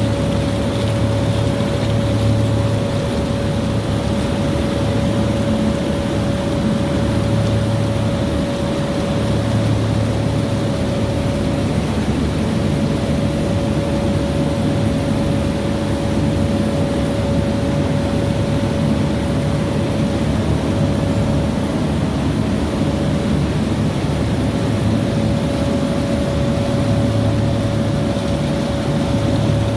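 Machinery running steadily, with a constant mid-pitched whine over a low hum that swells and fades every couple of seconds.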